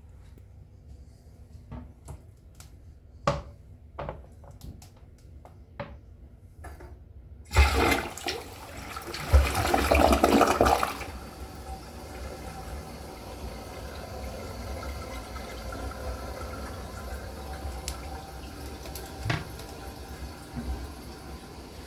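2021 Toto Drake Tornado Flush toilet being flushed. After a few scattered clicks, a sudden loud rush of water lasts about three seconds, then gives way to the steady hiss of the tank refilling.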